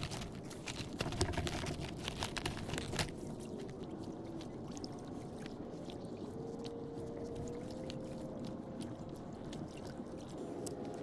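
Water lapping and trickling around a float tube, with a cluster of clicks and knocks in the first three seconds from handling a fishing rod and reel, then lighter scattered ticks.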